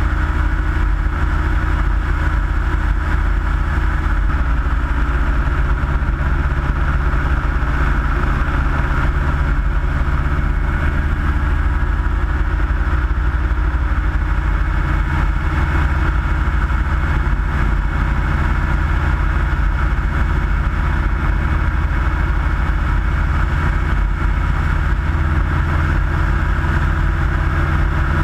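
Single-engine Minimax ultralight aircraft in cruise: its engine and propeller drone steadily at a constant pitch, with a rush of airflow noise over the wing-mounted microphone.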